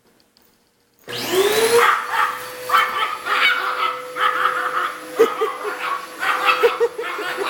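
A vacuum cleaner switches on about a second in, its motor whining up to speed and then running steadily, while a dog barks excitedly at it.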